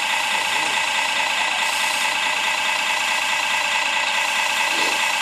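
Radio-controlled model trucks and construction machines running: a steady, high mechanical whine from their small motors and gears, holding even throughout.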